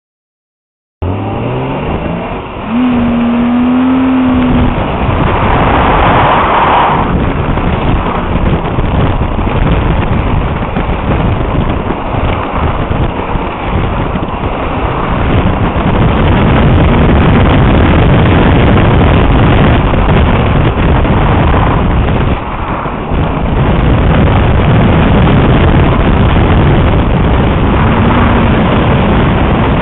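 1996 BMW 328is straight-six engine driven hard through an autocross course, its pitch climbing as it launches about a second in. It is heard from a camera on the outside of the car, with heavy wind noise on the microphone.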